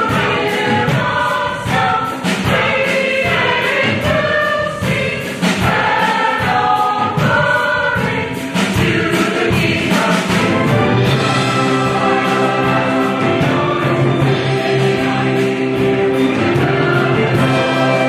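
Mixed choir singing with orchestral accompaniment. The parts move in the first half, then settle into long held chords from a little past the middle.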